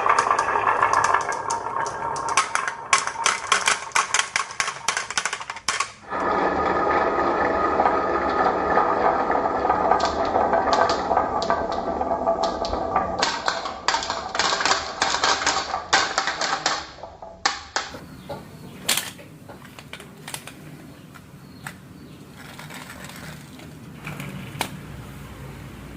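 Marbles clacking and rolling down a wooden marble run: rapid, dense clicks over a steady rolling rumble, which gets quieter with only scattered clicks in the last third.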